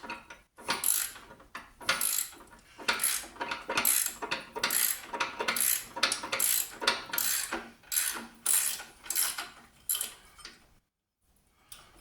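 Hand ratchet wrench clicking in repeated back-and-forth strokes, about two a second, working a seized, corroded subframe bolt loose. The strokes stop near the end.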